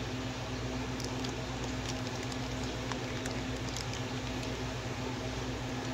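Aquarium air pumps and an air-driven sponge filter running: a steady low hum under an even hiss of bubbling water, with a few faint ticks.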